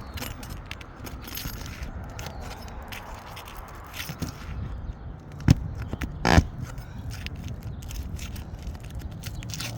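Nails being pried out from under asphalt roof shingles: tool scraping and clicking against the shingles, with two sharp louder snaps a little past the middle, about a second apart.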